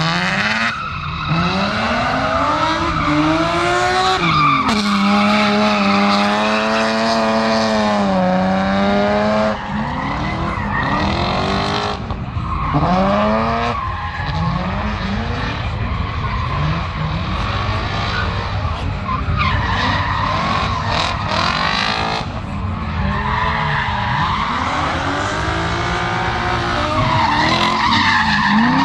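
Drift cars' engines revving hard, the pitch climbing and dropping again and again as the throttle is worked through the slides, over the hiss and squeal of spinning rear tyres. About five seconds in, one engine holds high, steady revs for several seconds before it falls away.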